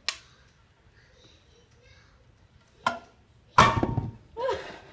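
Soap loaf being cut into bars: a cutter forced through the hard soap, knocking against the cutting base in sharp thunks, once at the start, then twice more past the middle, the loudest with a short ring. The soap is hard and cuts with effort.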